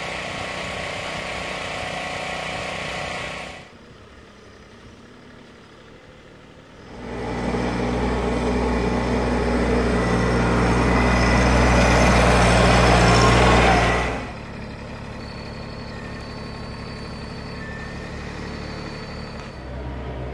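Compact tractor engine running as the tractor drives forward with a full front-loader bucket of gravel, getting louder for about seven seconds in the middle and then cutting off suddenly. Before and after it, steadier, quieter engine noise.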